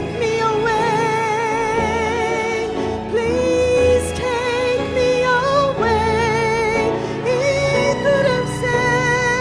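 A hymn sung by a voice with strong vibrato on long held notes, over a steady instrumental accompaniment.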